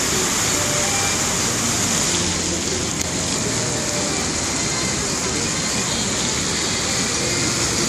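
Water-show fountain jets spraying up from a river and splashing back onto the surface, a steady rushing hiss.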